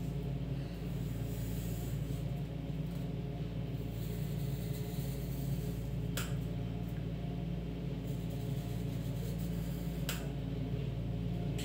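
Steady low hum, with the faint scratching of a pencil drawing on paper. Two short clicks come about halfway through and near the end.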